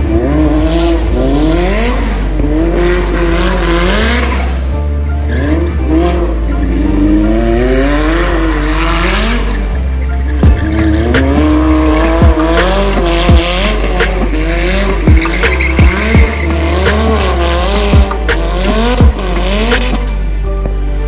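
Drift car's engine revving up and down, rising and falling in pitch, with tyre squeal as the car slides. From about halfway through comes a string of sharp, loud bangs at uneven spacing. Music with a heavy bass plays underneath.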